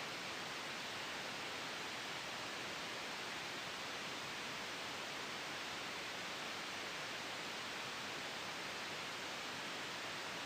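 Steady white-noise hiss, even and unchanging, without gusts or breaks.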